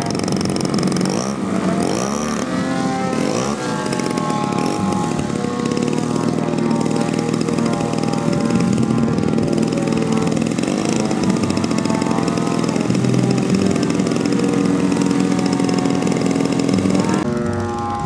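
Engine of a giant-scale radio-controlled F4U Corsair model running steadily with its propeller spinning, revved up and down a few times in the first seconds. Its note changes suddenly near the end as the model starts to taxi.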